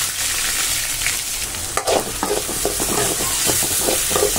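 Chopped onion and garlic sizzling in hot oil in a kadai, with a steady hiss. From about two seconds in, a metal spoon scrapes and stirs through them against the pan.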